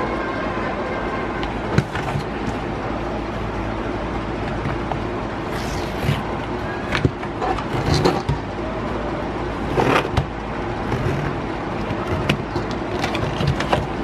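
Tablet packaging being handled: short crackles and rustles of plastic wrap and cardboard, with a tear strip being ripped open along an orange cardboard case box, over a constant background noise.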